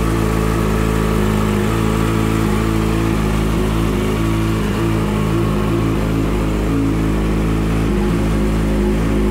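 2008 Yamaha YZF-R6's inline-four engine, fitted with a Two Brothers aftermarket exhaust, idling steadily.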